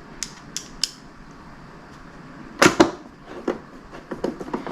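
Light clicks and taps of a screwdriver and plastic trunk-latch parts being handled while the latch screws are started. There are a few small ticks, a louder double knock about halfway through, then more scattered ticks.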